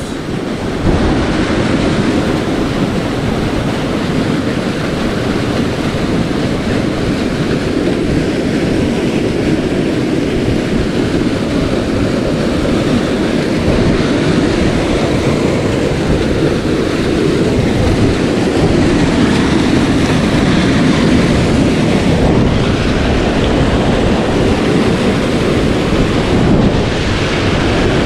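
Steady rush of water in a mountain headwater stream, tumbling over a run of small plunge pools and cascades.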